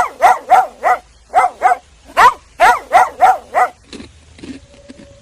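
Dog barking, about eleven short barks in three quick runs, stopping a little past the middle.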